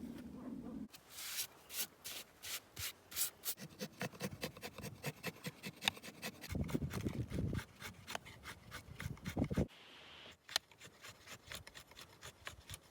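A hand tool rasping on wood in quick rhythmic strokes, about three a second, with a short break about ten seconds in.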